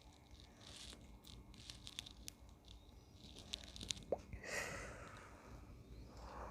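Faint crunching and wet mouth clicks of close-up chewing, in scattered single clicks, with a short breathy rush about four and a half seconds in.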